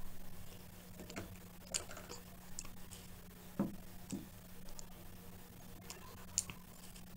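Scattered small crackles and clicks of crisp, flaky puff pastry being broken and handled by hand, with two soft knocks about halfway through, over a steady low hum.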